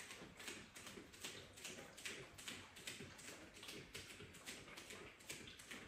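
Faint, quick light taps, about three or four a second, from a boxing drill being worked through.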